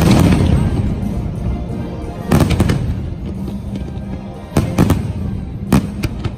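Aerial fireworks shells bursting: a bang at the start, a quick cluster of bangs about two and a half seconds in, another cluster about four and a half seconds in and a single bang near the end. The show's soundtrack music plays underneath.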